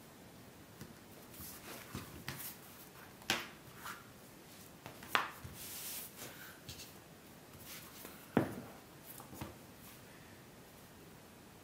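Leather pieces being handled and set down on a cutting mat: scattered light taps, rubbing and sliding, with three sharper knocks a couple of seconds apart.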